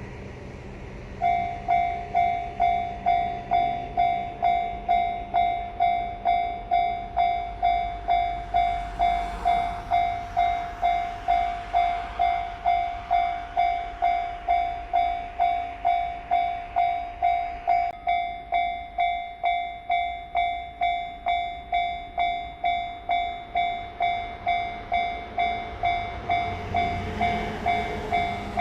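Japanese railway level-crossing alarm ringing its repeated electronic "kan-kan" tone, about two strikes a second, starting about a second in. The rumble of an approaching train builds near the end.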